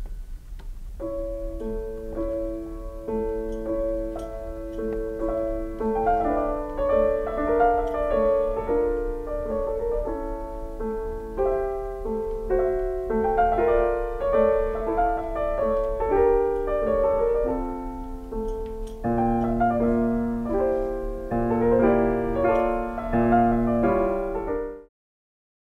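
Solo piano playing a melody over repeated broken chords, with deeper bass notes coming in about three-quarters of the way through; the music cuts off abruptly near the end.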